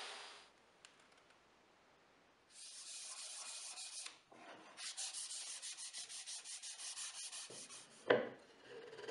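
Pine box edges sanded by hand with sandpaper in quick back-and-forth strokes, in two bouts starting about two and a half seconds in. A sharp knock near the end, as the pine lid is set down on the box, is the loudest sound. A table saw's cutting hiss fades out at the very start.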